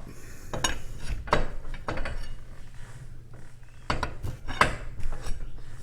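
Steel winding rods clinking and knocking in the winding cone of a garage door torsion spring as the spring is wound up: about half a dozen separate metallic clinks at irregular spacing.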